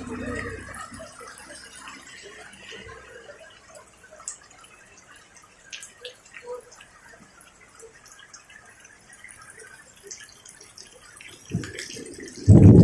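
Rain dripping and pattering faintly, with scattered light ticks. Near the end there is a thump, then a sudden loud, deep rumbling noise sets in.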